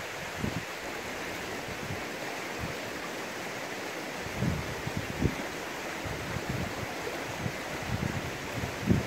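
Wind buffeting the microphone in irregular gusts over a steady outdoor hiss.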